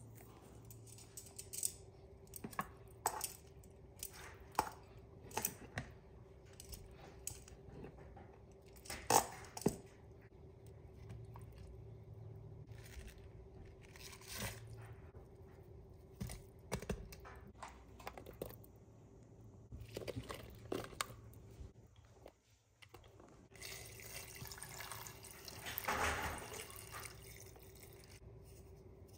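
Quiet kitchen handling sounds: scattered soft clicks and taps as skin is pulled off boiled chicken drumsticks and cut cabbage and vegetables are dropped into a stainless steel cooker pot. Near the end comes a steady stream of water pouring from a jug into the pot.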